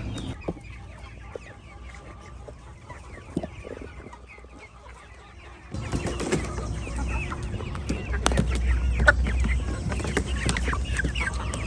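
A flock of chickens clucking and calling in many short, overlapping calls. About six seconds in the sound gets louder, with a low rumble underneath and a few sharp clicks.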